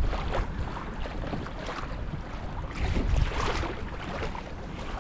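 Wind buffeting the microphone with a heavy rumble, and small choppy waves splashing against a kayak's hull; the wind gusts loudest a bit past halfway.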